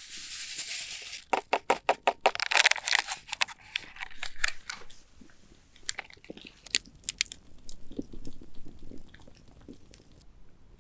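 Crinkling, crackling handling noise: a short hiss, then a quick run of sharp crackles that thins out into scattered clicks.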